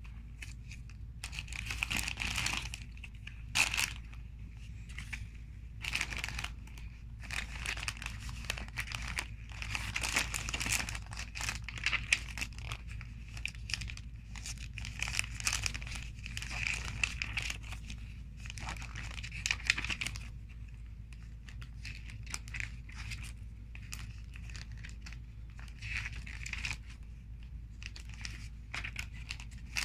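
Plastic LEGO parts bags crinkling and instruction-booklet pages rustling as they are handled, in irregular bursts with sharp crackles, quieter for a few seconds past the middle.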